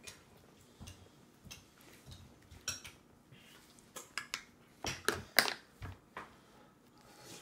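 A baby's plastic spoon and fingers tapping and scraping in a metal-lined feeding bowl: scattered clicks and knocks at an uneven pace, the loudest about two thirds of the way through.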